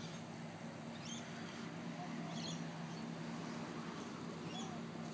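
Small birds chirping faintly now and then, a few short high squeaks and little rising-falling calls, over a steady low hum.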